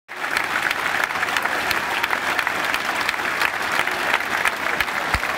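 Large stadium crowd applauding steadily in tribute, many sharp claps close by, with a couple of dull low thumps near the end.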